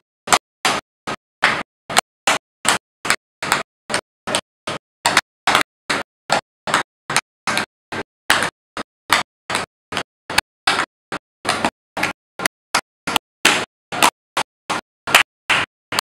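Tap dancing: tap shoes striking a portable dance board in a steady, even rhythm of sharp clacks, about three a second, with silence between them.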